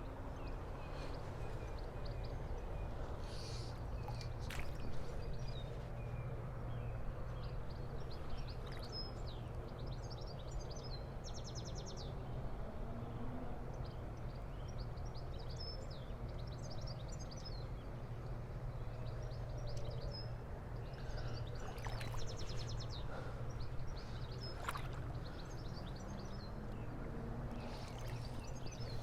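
Small birds singing in short repeated phrases over a steady low outdoor rumble.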